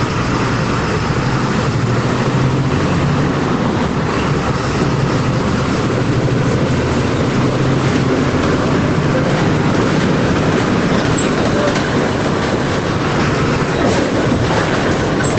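Volkswagen 17.230 EOD bus's diesel engine running steadily while the bus is under way, with a constant low hum and road noise.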